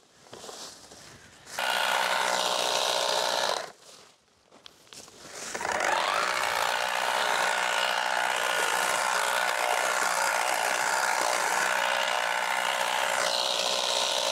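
Battery-powered handheld tea-harvesting machine running in bursts as it cuts tea shoots: a short run of about two seconds, a pause, then a long steady run from about six seconds in, its motor whine rising as it spins up.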